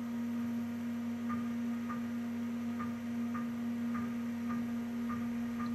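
Steady low machine hum with soft, evenly spaced ticks about twice a second.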